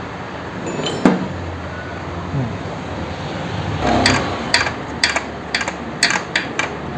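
Hand tools and bolts clinking against metal, a scattered series of sharp knocks and clinks from about four seconds in, as a motorcycle radiator is bolted onto its mounts.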